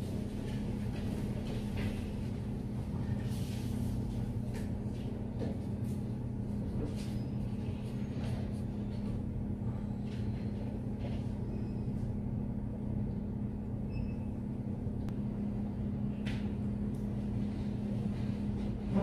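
Steady low room hum with a constant drone, over which a mechanical pencil faintly scratches on paper in short, scattered strokes.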